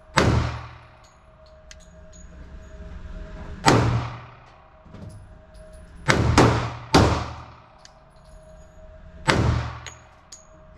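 Springfield Armory XD(M) .45 ACP pistol firing six shots, each a sharp report with a long echoing decay in an indoor range. The shots are a few seconds apart, except for three in quick succession about six seconds in.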